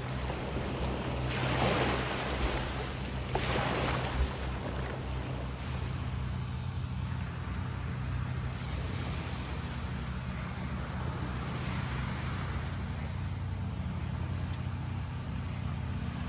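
Longtail boat engine running with a steady low drone, with two short rushes of splashing water about two and four seconds in.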